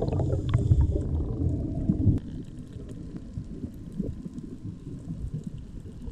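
Muffled underwater rumble of water moving past a submerged camera as a diver swims over a coral reef. It is louder for the first two seconds, then quieter, with faint scattered clicks.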